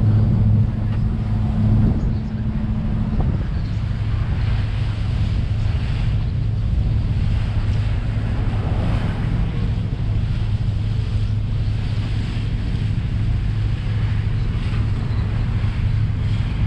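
Passenger ferry's engine running with a steady low drone, under wind blowing across the microphone and sea water rushing past the hull.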